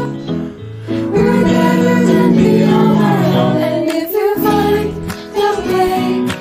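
Choir of young mixed voices singing an English-language pop-style song in harmony, holding long sung lines that briefly drop away about half a second in and again near four seconds.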